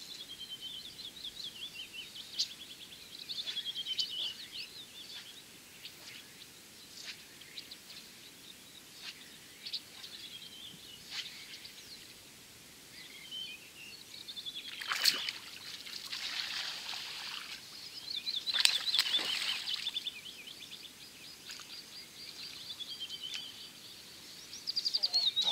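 Small songbirds singing repeated short chirping trills over a faint outdoor background. Twice, about midway, a louder rush of noise swells and fades.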